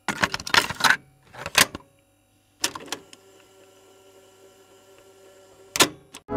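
A few short bursts of clattering and clicking in the first three seconds and one more shortly before the end, over a faint steady hum.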